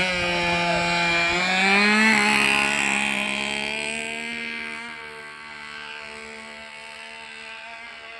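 Webra .91 glow engine of a radio-controlled trainer plane at full throttle, a steady high-pitched drone. It rises slightly in pitch as the plane rolls off on its takeoff run, then fades as the plane climbs away.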